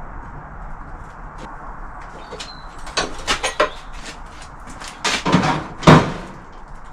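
Knocks and clanks of steel workpieces being handled over a steady background noise. The loudest is a sharp clunk about six seconds in.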